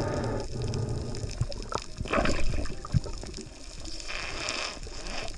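Water sloshing and gurgling around a diver's camera at sea, swelling in washes about every two seconds.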